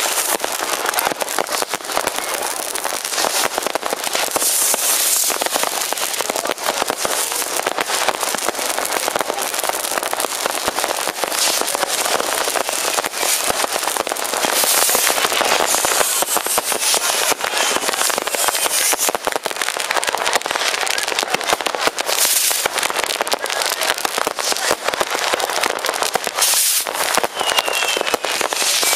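New Year's fireworks in a dense, unbroken barrage: countless firecrackers and rockets bang and crackle over one another without a pause, with a few short whistles near the end.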